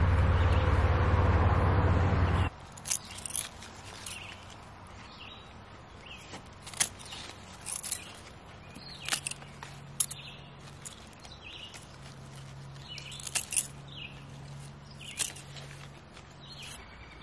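A loud, low rushing noise cuts off suddenly about two and a half seconds in. Then scissors snip Swiss chard stems with several short, sharp cuts a second or more apart, while small birds chirp.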